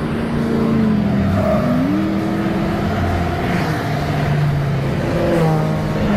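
Motor vehicles running, their engine tones stepping up and down in pitch over steady road noise.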